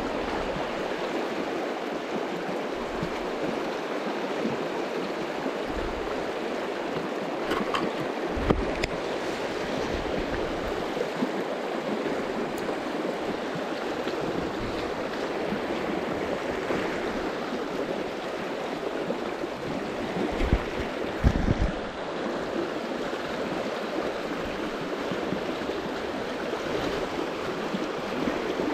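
Shallow river rushing steadily over a stony riffle. A few dull low bumps stand out, once about a third of the way in and again about two-thirds through.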